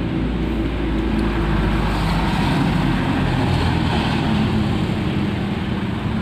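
A motor vehicle's engine running steadily close by, a low, even hum over road noise.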